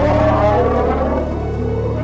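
Background music with sustained low notes.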